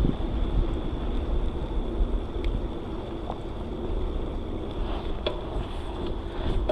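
Wind on an action camera's microphone and tyre rumble from a bicycle riding along a trail. There is a faint steady high tone underneath and a few light clicks, a couple of them in the second half.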